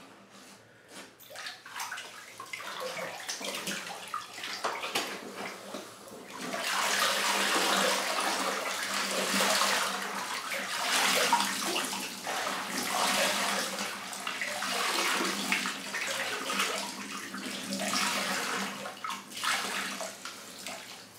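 Water splashing and sloshing in a filled bathtub as a fur jacket is worked under the surface. From about six seconds in, a heavy stream of water pours and splashes back into the tub as the soaked jacket is lifted out and squeezed, easing off near the end.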